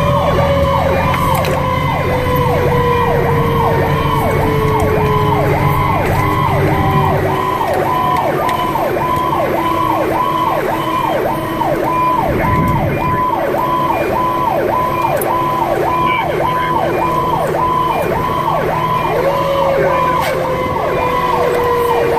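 Siren of a 2010 Pierce Arrow XT fire engine running hot to a call, heard from inside the cab: a fast electronic yelp cycling about twice a second, with a lower wail sliding slowly down in pitch that is brought back up about three quarters of the way through, over the truck's running rumble.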